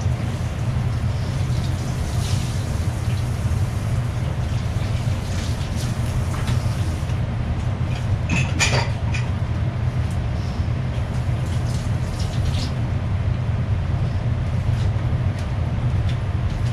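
A steady low drone of the small restaurant's background machinery fills the room, with a few light clinks of chopsticks on the plate of gyoza, the clearest about halfway through.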